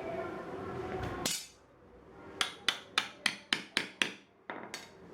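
Hammer striking in a quick run of about seven taps, roughly four a second, then two more after a short pause.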